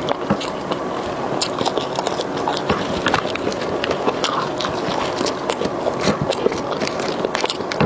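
Close-miked chewing of french fries, a steady stream of wet mouth sounds with many small sharp clicks and smacks.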